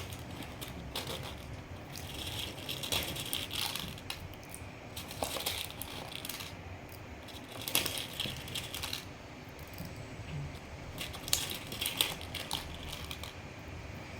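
Small plastic objects being handled and rummaged through: short bursts of clicking, rattling and crinkling, several times with quieter gaps between.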